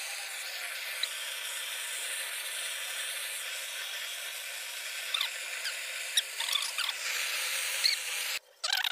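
Handheld canister gas torch hissing steadily while its flame scorches the surface of thin crate wood. A few faint high squeaks come through in the second half, and the hiss cuts off suddenly near the end.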